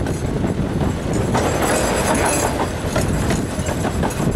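Narrow-gauge Talyllyn Railway carriage running along the line, heard from its open window: a steady rumble of wheels on rails with a few sharp clicks.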